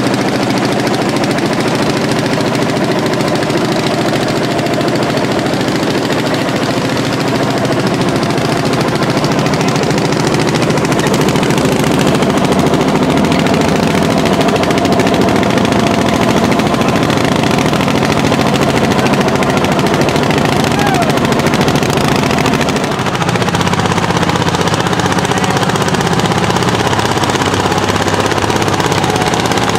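Landini L55 hot-bulb tractor's single-cylinder two-stroke engine pulling a plow flat out under heavy load, a rapid, even beat of loud exhaust strokes. Its tone shifts a little about two-thirds of the way through.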